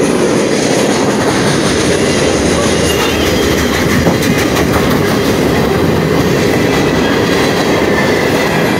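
Freight train cars rolling past in a steady rumble, with the wheels clattering over the rail joints and a cluster of sharper clacks about four seconds in.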